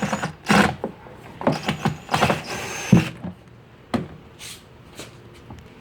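A screwdriver backing out a screw on a speaker's tweeter mount, with the speaker parts being handled: a run of short scrapes and clicks, and sharp knocks about three and four seconds in.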